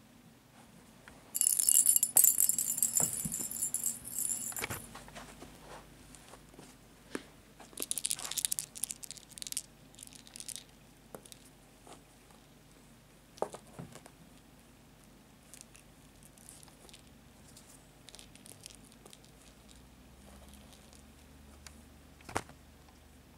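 A cat's hollow plastic bell ball being batted around, its bell jingling and rattling: a loud burst of about three seconds, then a shorter one a few seconds later. Scattered soft knocks of paws and toys on carpet follow.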